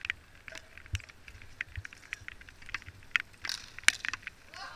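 A scattering of sharp clicks and knocks at irregular intervals, the loudest a little before the end, over a faint hiss.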